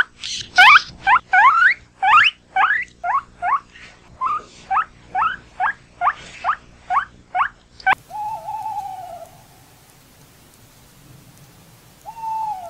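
Guinea pigs wheeking: a run of short rising squeaks, about two or three a second, that stops about eight seconds in. Then two lower, drawn-out, slightly falling calls from another animal, a long one and a short one near the end.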